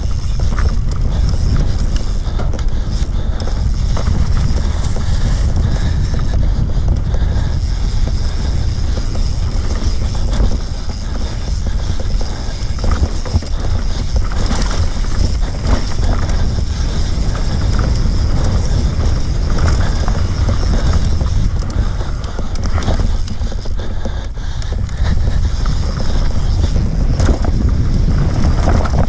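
Wind buffeting a bike-mounted or helmet microphone with a heavy low rumble, over a constant rattle and knocking of a mountain bike crossing rough trail at speed. It eases briefly twice, about ten seconds in and again near twenty-four seconds.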